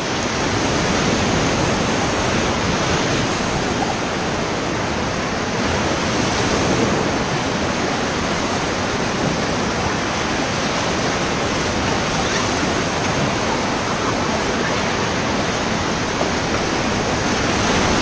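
Loud, steady rush of whitewater rapids churning around an inflatable raft.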